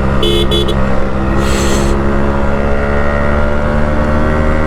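Yamaha RX-100's 98 cc two-stroke single-cylinder engine running at a steady cruising speed through an exhaust that its rider reworked himself. The engine note is steady and even, with no roughness or vibration in it.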